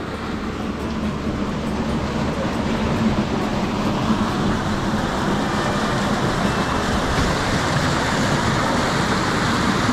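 Rushing water: a steady, even rush that grows gradually louder.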